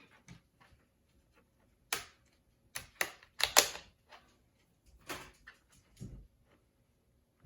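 Plastic screen bezel of a Dell Latitude 3400 laptop being pried off with a thin tool: a series of sharp snaps and clicks as its latches pop free, about six of them, the loudest about halfway through.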